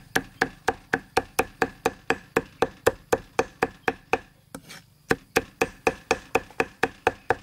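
Steel cleaver chopping soft red peppers on a thick wooden chopping block in quick, even strokes, about four a second, with a brief pause a little past halfway.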